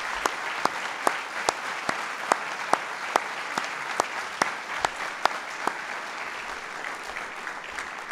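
Audience applauding steadily. One louder, evenly spaced sharp clap or click sounds about two and a half times a second through the first six seconds, then stops while the applause goes on.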